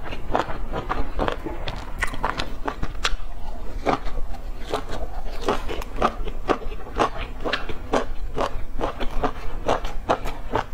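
Close-miked chewing of a mouthful of stuffed flatbread: an irregular run of sharp mouth clicks and crunches, several a second.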